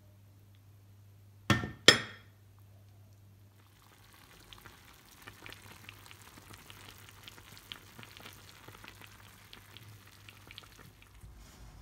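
Two sharp clinks about a second and a half in, then the vegetables and sauce in a hot tagine sizzling and bubbling with a soft crackle of many small pops.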